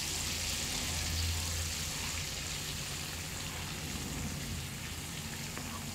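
Tamarind paste frying in hot groundnut oil with curry leaves, a steady sizzle as the water in the paste cooks off, while a perforated steel ladle stirs it.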